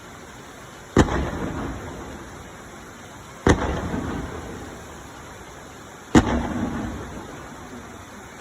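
Aerial firework shells bursting: three sharp booms a few seconds apart, each followed by a rumbling echo that fades away.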